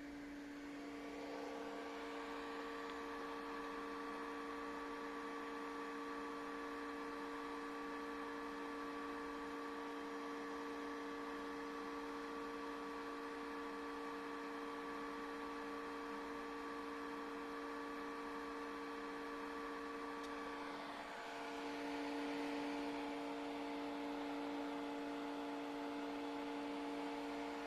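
Steady electrical hum from running equipment, made of several constant tones. It shifts slightly and grows a little louder about 21 seconds in.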